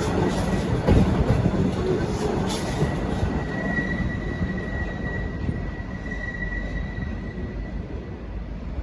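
Diesel-hauled V/Line passenger train rolling out, a steady rumble of wheels on rails slowly fading as it pulls away. In the middle a thin, high wheel squeal holds for several seconds.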